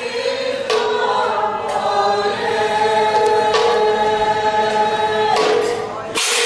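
A group of voices sings long held notes of a devotional chant, the pitch moving in a few steps. A few light percussive taps can be heard.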